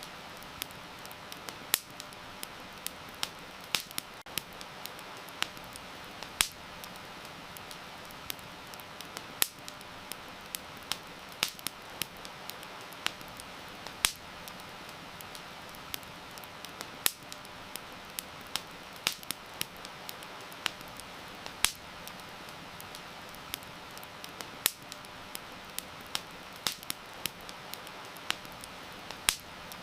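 Wood campfire crackling, with many irregular sharp pops and snaps, over a steady hiss of heavy rain.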